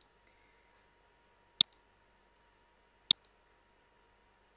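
Computer mouse button clicking, three single sharp clicks about a second and a half apart, the last one right at the end.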